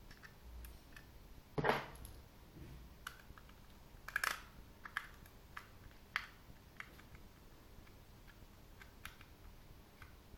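Scattered small clicks and taps of plastic as a Microsoft Wireless Mobile Mouse 3500 is handled and a precision screwdriver is set against a screw in its base, with the loudest knock about two seconds in and a quick cluster of clicks around four seconds.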